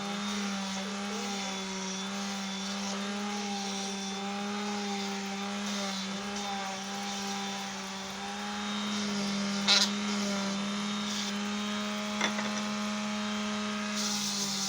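Electric power sander running steadily with a low hum and a hiss of sanding on wood. Two sharp knocks come about ten and twelve seconds in.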